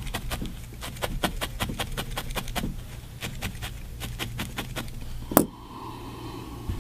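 Felting needle stabbing repeatedly into wool, quick sharp pokes about six or seven a second that thin out after a couple of seconds, with one louder tap about five and a half seconds in.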